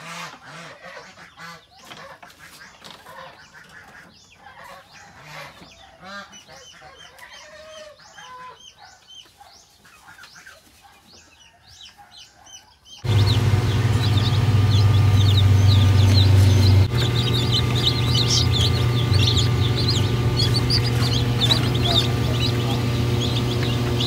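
Chickens chirping and clucking, with a few knocks from a wire cage and plastic tray being handled. About halfway through, a sudden change to a loud steady electric hum with many newly hatched chicks peeping rapidly in an incubator.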